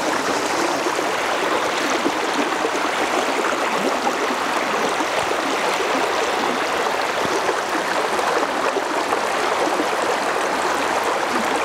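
A shallow, fast river riffle: broken white water running over the stream bed in a steady, even rush.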